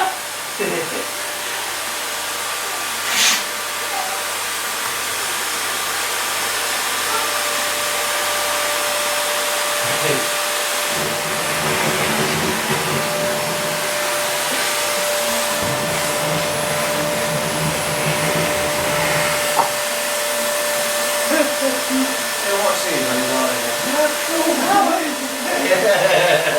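Household vacuum cleaner running steadily with a constant whine, its nozzle being run over a person's hair.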